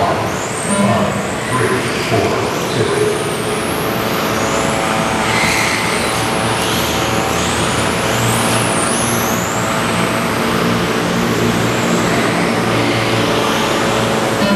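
Electric radio-control race cars with brushless motors whining around the track, the high whines rising and falling again and again as the cars accelerate and slow, over a steady background hum.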